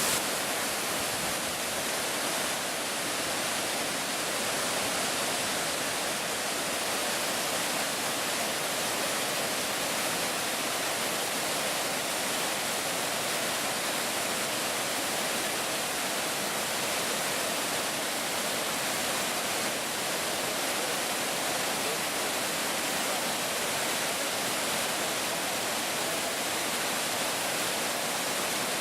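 Fukiware Falls on the Katashina River: the water pouring over the falls makes a steady, unbroken rush.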